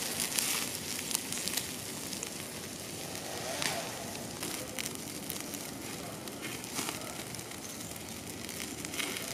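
Wood campfire crackling, with many small sharp pops over a steady hiss, as turkey meat grills over it.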